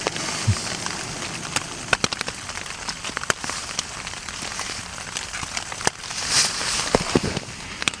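Drizzle pattering on the tent fabric in scattered, irregular taps, over a steady hiss from a small gas camping stove heating coffee. A short louder hiss comes about six seconds in.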